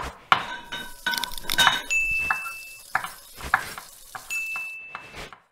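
Logo-animation sound effects built from kitchen sounds: a quick run of utensil clinks, taps and knocks over a sizzle-like hiss, with a high steady tone held for about a second, twice.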